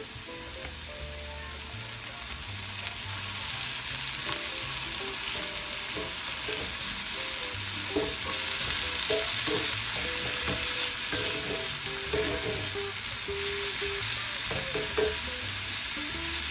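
Diced onions, bell peppers and minced garlic sizzling in a cast-iron skillet as a sofrito base, stirred with a wooden spatula; the sizzle grows louder a few seconds in.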